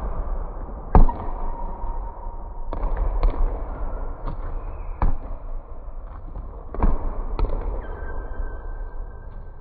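Basketballs bouncing on a hardwood gym floor, several balls at once: sharp, echoing thuds at irregular intervals over a steady background hum.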